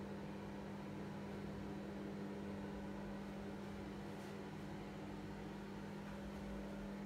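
Steady low hum over faint hiss, with a soft brief rustle about four seconds in.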